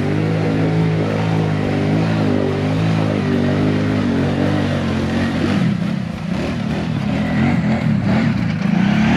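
Kawasaki Brute Force ATV engine running steadily, then revving up and down from about halfway through as it churns through a mud hole in two-wheel drive and climbs out.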